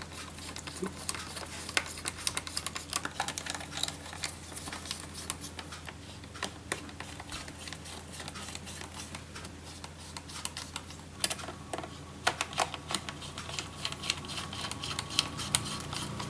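Small screwdriver driving the four screws that hold the drive in a laptop's hard-disk bay: a run of light, irregular clicks and ticks.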